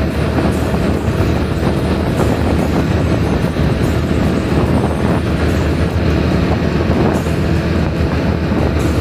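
Steady rush of wind on the microphone mixed with motorcycle engine and road noise, riding at highway speed of about 60–65 km/h.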